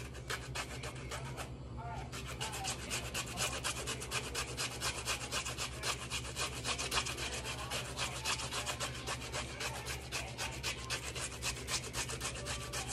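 Fresh ginger root being grated on a metal box grater: quick rasping strokes in a fast, even rhythm, several a second, with a short pause about a second and a half in.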